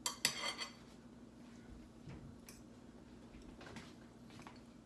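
Metal cutlery clinking and scraping against plates, a quick cluster of clicks with a short ring in the first half second, then a few light separate clicks.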